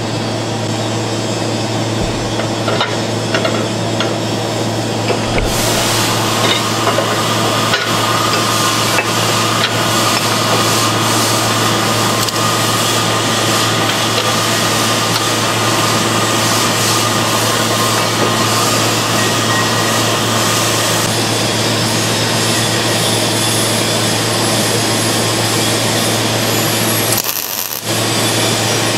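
Steady crackling hiss of metalworking over a constant electrical hum, starting abruptly about five seconds in and dropping out briefly near the end, as sparks fly from work on a steel pipe-support part clamped in a jig.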